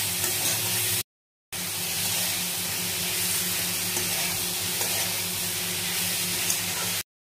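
Chopped bottle gourd, potato and tomato frying in hot oil in a kadhai: a steady sizzle as they are stirred with a metal spoon, with a few light scrapes of the spoon on the pan. The sound cuts briefly to silence about a second in and again near the end.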